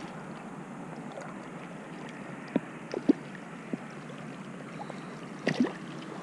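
River water running steadily, with a handful of short sharp splashes from a hooked smallmouth bass thrashing at the surface, most of them in the middle of the clip and one more near the end.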